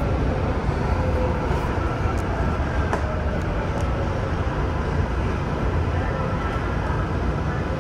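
Steady low rumble of a MARTA heavy-rail car heard from inside the car, with a few faint clicks.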